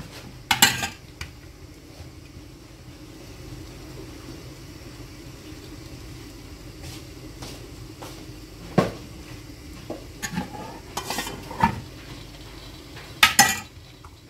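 Hands working thin msemen dough on a granite countertop, with about six short, sharp knocks and clinks of kitchenware, the loudest just after the start and near the end, over a steady low hum.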